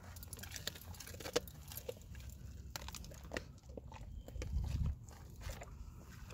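Boxer-Labrador mix chewing on a dried duck-head treat: scattered crunching and crackling bites, with a brief low rumble about four and a half seconds in.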